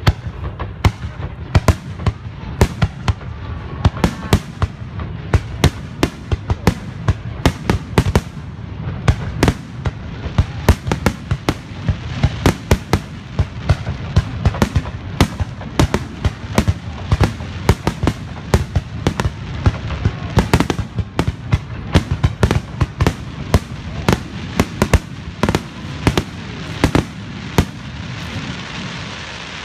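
Aerial fireworks shells bursting in rapid succession, two or three sharp bangs a second over a low rumble. Near the end the bangs stop and a steady hiss is left.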